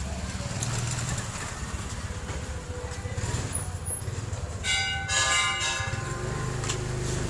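Steady low engine rumble, with a short, bright ringing sound about five seconds in.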